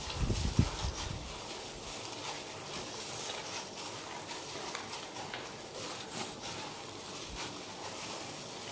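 Hand in a plastic glove kneading raw egg into minced chicken in a steel bowl: a run of soft wet squelches and clicks, with a few low thumps in the first second.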